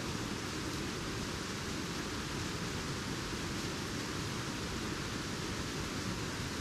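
Earland Falls, a tall waterfall in full flood, giving a steady, even rush of falling water and spray.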